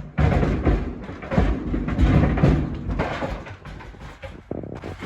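Steel-toe work boots tumbling in a clothes dryer, banging and thudding irregularly against the drum several times a second.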